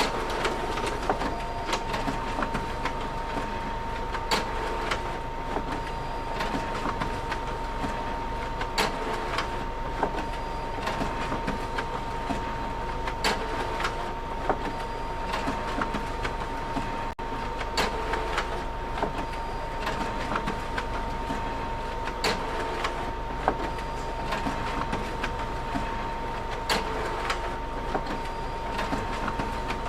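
Photocopier running continuously: a steady mechanical hum with a thin constant whine, and a sharp click about every four and a half seconds with lighter ticks between as the machine cycles.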